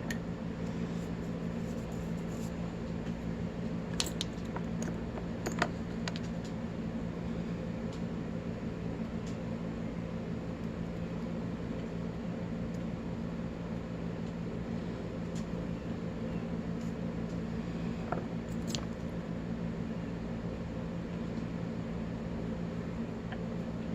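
Steady low hum in a small room, with a few short, sharp metallic clicks of small padlock parts being handled during disassembly, twice in the first six seconds or so and again near the end.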